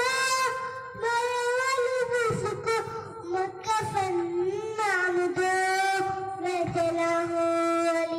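A young boy singing a Muharram devotional recitation solo, unaccompanied, into a handheld microphone. He sings in long, high held notes that bend and glide, with short breaths between phrases.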